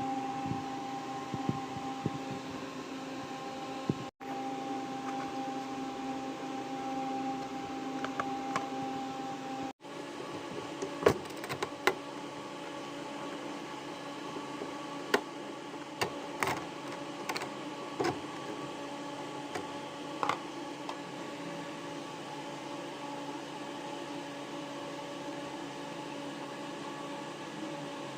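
A steady mechanical hum with several steady tones, cut off abruptly twice. From about ten seconds in, scattered sharp clicks and knocks of small hard parts being handled are heard over it.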